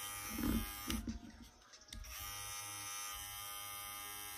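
Babyliss rose gold cordless hair clipper running with a steady electric buzz. It is switched off about a second in, back on a second later, and cut off again at the end.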